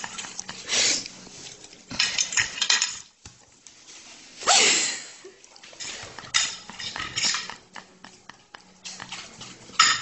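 A fork scraping and clinking on a plate in several short bursts.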